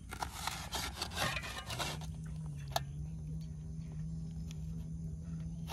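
Meat cleaver cutting a raw green plantain on a steel plate: scraping, sawing strokes in the first two seconds, then a single sharp click near the middle. A steady low hum starts about two seconds in and carries on.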